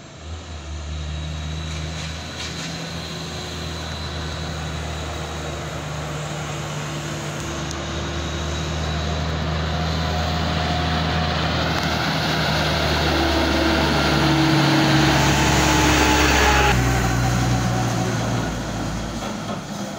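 Diesel engine of a loaded concrete mixer truck driving past and pulling away up a slope. It runs as a steady low hum that grows loudest as the truck passes, its note stepping to a new pitch a few times before it fades near the end.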